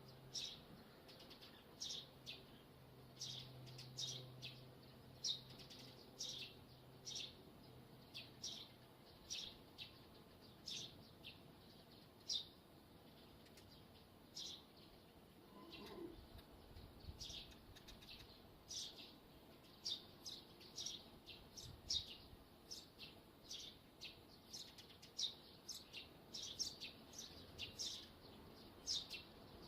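Wire stays of a rooftop TV antenna squeaking in the wind: short, high-pitched squeaks repeating irregularly, about one or two a second, with a faint low rumble of wind about halfway through.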